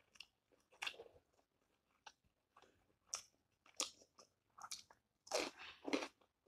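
Close-mic chewing and crunching of a mouthful of food, with scattered short crisp bites; the loudest crunches come about five seconds in, as a stick of radish pickle is bitten.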